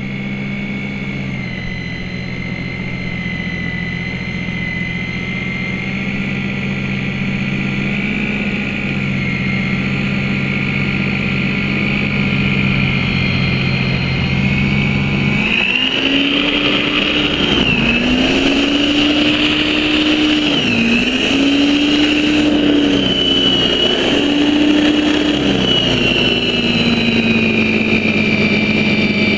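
Snow Joe corded electric snow thrower running, with a steady motor whine and hum as the auger throws snow. About halfway through, the pitch rises and then sags briefly three or four times as the snow load on the motor changes, before settling back. It gets gradually louder.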